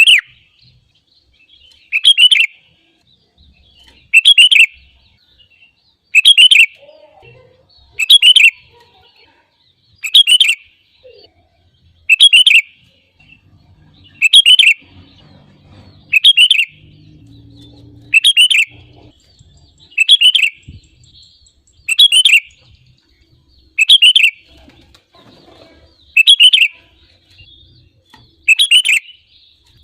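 Sooty-headed bulbul (kutilang) singing: a short, loud phrase of a few notes, repeated about every two seconds.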